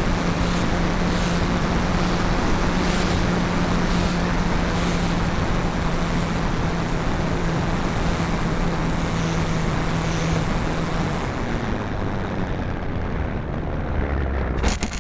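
Air rushing over a keychain camera on a Parkzone P-51D Mustang electric foam model plane, with the steady hum of its brushless motor and propeller. The hum stops about eleven seconds in and the rush dies away as the plane comes down onto the grass, and there is a sharp knock just before the end.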